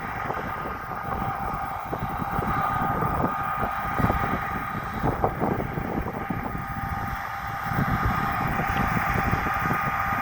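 John Deere S790i combine harvester running as it cuts wheat, a steady machine whine over a noisy drone, with wind buffeting the microphone.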